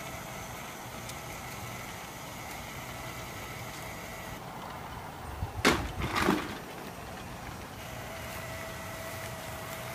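A small battery-powered toy train's motor whirring steadily as it creeps along slowly. Two short, sharp noises come a little after halfway.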